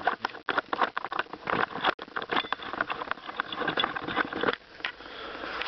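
Dense, irregular clicking, scratching and rattling as a Singer sewing machine part is handled and cleaned, stopping about four and a half seconds in and giving way to a quieter steady hiss.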